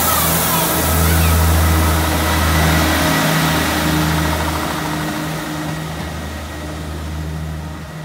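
EMR Regional diesel multiple unit's underfloor diesel engines working under power as the train pulls away, a deep steady hum with a brief dip about three seconds in, fading gradually as the train draws off.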